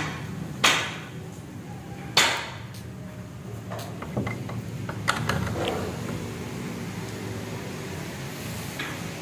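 Three sharp knocks, one right at the start and two more about a second and two seconds in, each with a short ring, then a scatter of lighter clicks, over a low steady hum.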